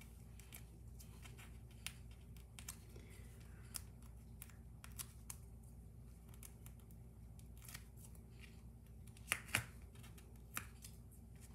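Scattered small clicks and paper sounds of fingernails picking the paper release backings off foam adhesive dimensionals on a cardstock panel, the two loudest clicks coming close together about nine and a half seconds in.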